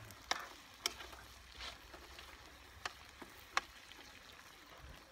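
A cooking utensil clicking against a frying pan several times as pieces of meat and potato are stirred, over a faint steady hiss of frying.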